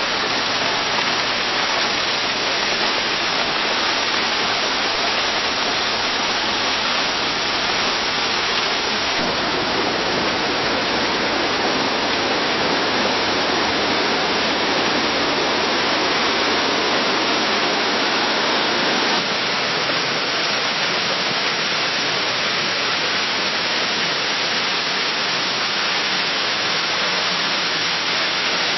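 Heavy rain falling in a forest: a dense, steady hiss of drops on leaves with no single drops standing out. The character of the rain changes slightly twice, about a third and two thirds of the way through.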